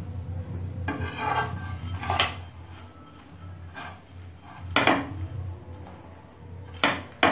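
Spatulas scraping and knocking against a non-stick frying pan as a sandwich toasting in oil is pressed and shifted, first with a wooden spatula and then a steel one. There are a few sharp clacks, two of them close together near the end, over a steady low hum.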